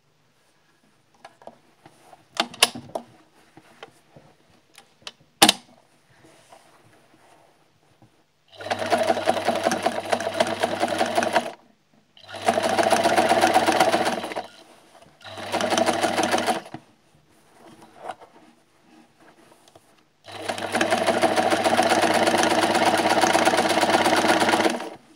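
Sewing machine stitching in four runs, each starting and stopping abruptly, the last and longest about four and a half seconds. Before the first run there are a few scattered clicks and one sharp knock.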